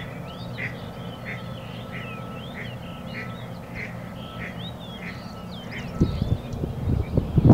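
A spring chorus calling from a flooded marsh: one call repeats about every two-thirds of a second under a steady tangle of short, higher, rising calls. Footsteps on a wet path come in over the last second or so.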